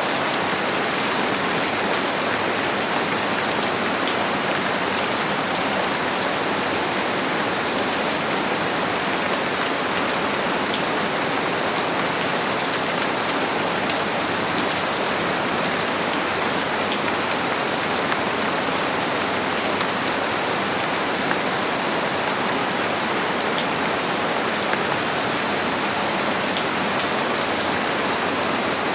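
Steady heavy rain falling, a dense even hiss full of fine drop patters, with no thunder.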